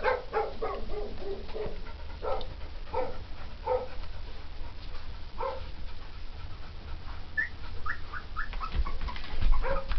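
Dog whimpering in a series of short whines, lower at first, then a run of higher, thinner whines in the last few seconds.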